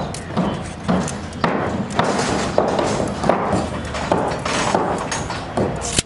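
Building-site work noise: irregular knocks and thuds, roughly two a second, with a few short ringing clinks over a steady background rumble.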